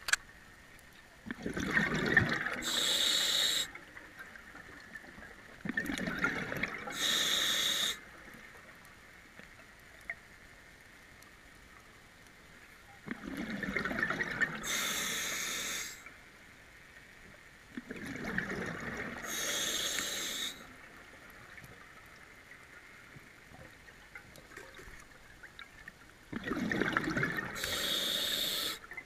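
Scuba diver breathing through a regulator underwater: five breaths a few seconds apart, each a lower rushing sound followed by a brief higher hiss.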